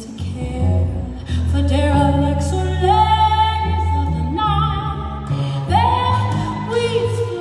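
A woman singing long held notes with vibrato, sliding between pitches, over low sustained double bass notes that change every second or so.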